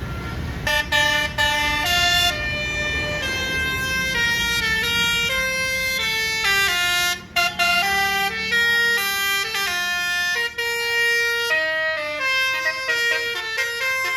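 Basuri 'telolet' multi-tone horn on a bus playing a quick melody of stepped notes, starting about a second in, over a low engine rumble that fades out partway through.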